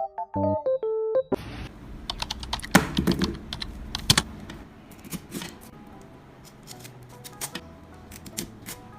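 A short piano tune ends about a second in. Then comes an irregular run of sharp clicks, taps and crinkles as an album's packaging is handled and unwrapped, over quiet background music.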